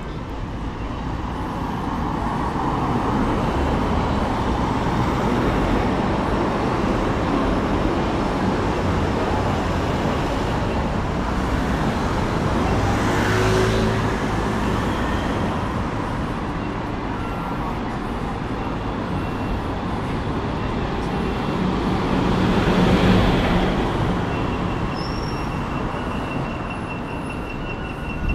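Road traffic passing close by on a city street, a steady rush of cars and vans with two vehicles swelling past, about halfway through and again about two-thirds through. Near the end a pedestrian crossing signal starts ticking steadily.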